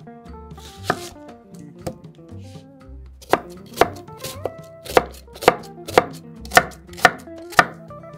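Chef's knife cutting an onion on a wooden cutting board: two separate cuts, then a steady run of chopping strikes, about two a second, from a little under halfway in.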